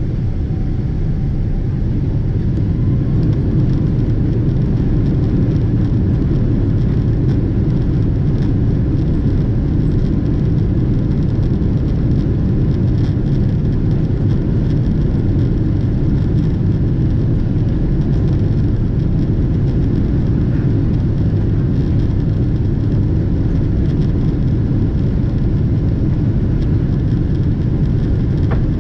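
Steady low rumble of a Boeing 777-200ER's engines and airframe heard from inside the passenger cabin, with faint light rattles. The level rises slightly about three seconds in.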